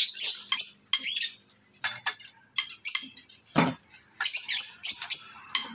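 Irregular metal clinks and clacks of a socket wrench and bar being worked on a bolt at the flywheel end of a stripped engine block, with one heavier clank about three and a half seconds in and a quick run of clicks just after.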